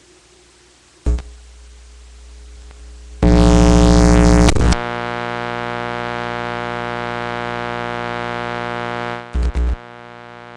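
Electrical hum and buzz from a freshly wired breadboard microphone preamp being plugged into the recording. A sharp pop comes about a second in, then a very loud buzzing burst around three seconds in. A steady many-toned buzz holds for several seconds, a few crackling pops come near the end, and then a quieter hum.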